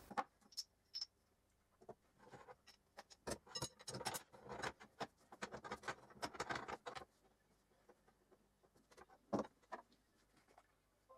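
Light clinks, taps and scrapes of aluminium support blocks and steel guide rods being handled and set on an aluminium base plate. The sounds come thickest in the middle few seconds, then one sharper knock follows near the end.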